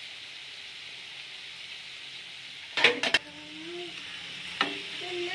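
Hot oil sizzling steadily around fried potato pieces in a pan. A few sharp knocks of a utensil against the pan come about three seconds in and one more near the end, as the finished potatoes are lifted out one by one.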